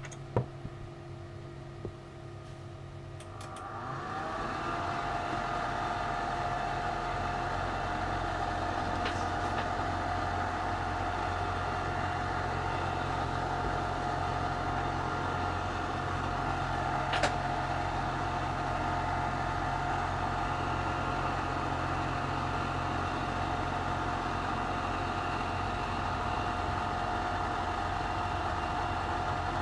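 A small electric motor or fan starts about three seconds in, its whine rising briefly in pitch and then running steady over a low hum. A few light clicks come before it, and one sharp click comes midway.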